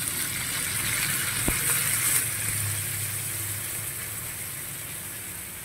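Crabs sizzling in a hot pan as coconut milk is poured over them. The sizzle swells at first, then slowly dies down as the milk covers the pan.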